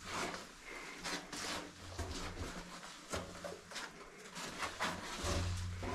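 Irregular knocks, scuffs and rustles of a person climbing down an old wooden mine ladder: boots and hands on the rungs, clothing and gear brushing.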